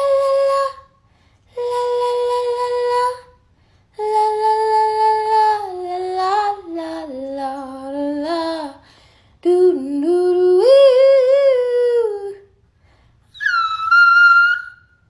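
A woman's voice singing wordless, breathy held notes in five separate phrases with short gaps between them. One long phrase steps down in pitch, the next rises and wavers, and a short, much higher note comes near the end.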